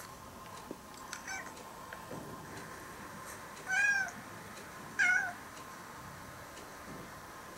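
A cat meowing: a faint short call about a second in, then two louder short meows around four and five seconds in.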